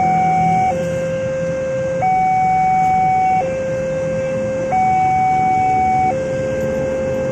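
Railway level-crossing warning alarm sounding a two-tone hi-lo signal, alternating between a higher and a lower held tone about every second and a half. It warns that a train is approaching and the crossing is closed.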